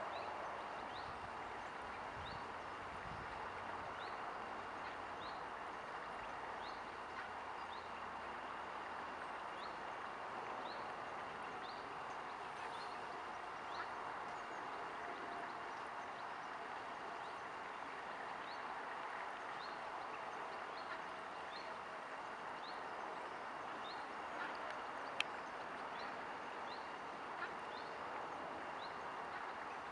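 Steady outdoor background hiss with a small bird repeating a short, high chirp about once a second. A faint hum rises slowly in pitch through the second half, and there is one sharp click near the end.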